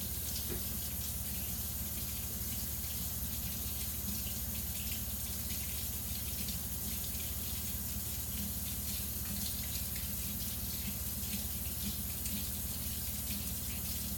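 Water running steadily from a hot tap into a sink, rinsing uncured Gorilla Glue off a 3D-printed part.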